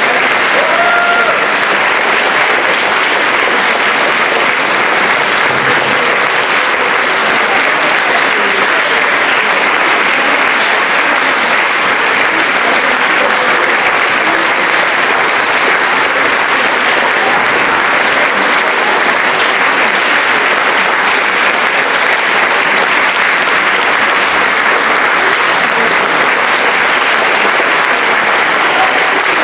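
Audience applauding steadily, a dense, even clapping that does not let up.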